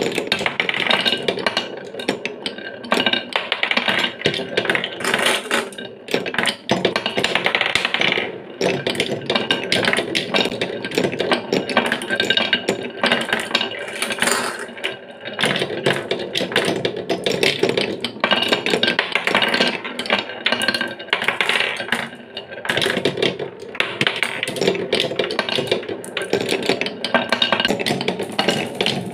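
Glass marbles rolling and clattering down a wooden marble run: a continuous, dense stream of clicks and knocks on wood.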